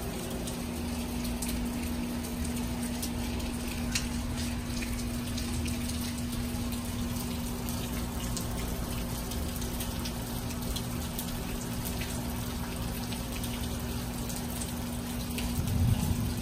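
Light rain and water dripping and running on wet ground, a steady patter of small drips over an even wash. A steady low hum runs underneath, and a brief low rumble comes near the end.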